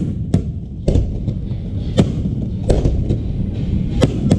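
Aerial fireworks bursting: about six sharp bangs at irregular intervals over a continuous low rumble.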